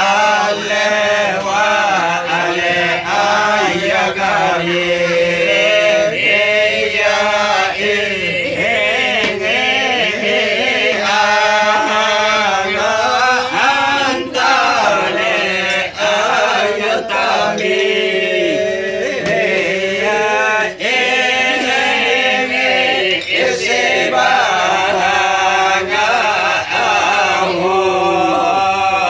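A group of voices chanting an Islamic devotional song together, sung without a break in long, repeating phrases.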